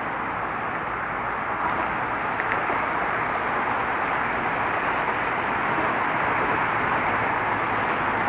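Steady rush of road traffic, the continuous tyre and engine noise of many cars driving past, growing slightly louder toward the end.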